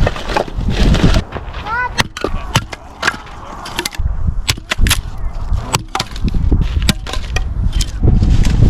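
Wind buffeting the microphone, with a scattered series of sharp knocks and clicks and a few short squeaks about two seconds in.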